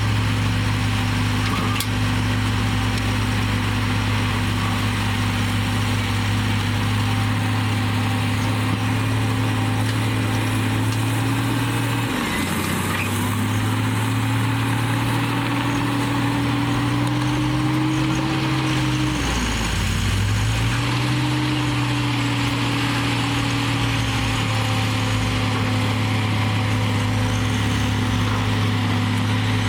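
Komatsu D58E bulldozer's diesel engine running steadily at working speed. Its pitch dips sharply and climbs back twice, about twelve and nineteen seconds in, and rises slowly between the dips.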